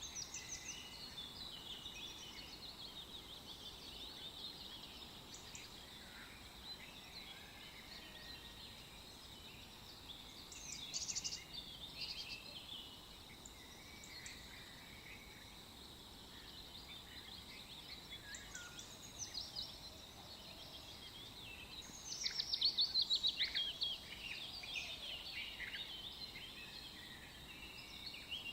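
Songbirds chirping and singing over a low background hiss, with a louder burst of rapid, descending chirps about three-quarters of the way through. A faint steady high tone runs underneath.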